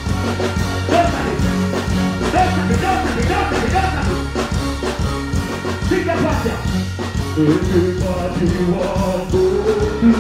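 Live dancehall music played loud through a stage sound system, a steady beat with a performer's voice singing over it on a microphone.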